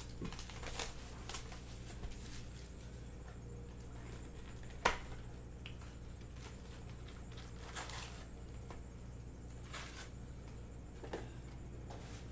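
Faint rustling, crinkling and clicks of a shrink-wrapped cardboard trading-card box being unwrapped and opened, and its foil packs being pulled out and stacked. One sharper click about five seconds in, over a steady low hum.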